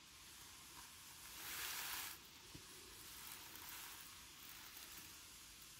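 Near silence: a faint steady hiss, with a brief louder rush of hiss about a second and a half in.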